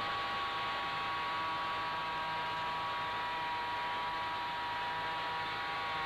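M45H twin-spool turbofan running steadily on a test bed: an even rushing noise with a high whine of several steady tones on top.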